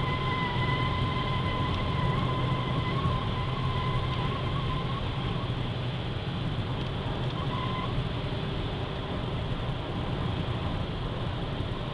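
Kia Ceed 1.6 driving, with steady road and engine noise and a thin, high, steady whistle over it. The whistle fades out about five seconds in and comes back briefly near eight seconds. The owner suspects the whistle comes from the automatic transmission; it turns up at 120 km/h and above in hot weather.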